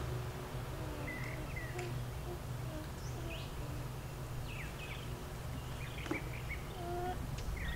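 Birds chirping in scattered short calls over a steady low background hum.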